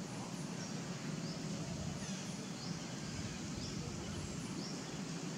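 Outdoor ambience: a steady low rumble with faint, short high bird chirps recurring about once a second.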